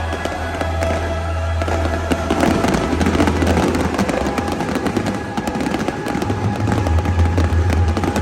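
Fireworks bursting and crackling in quick succession over loud concert music with a steady deep bass.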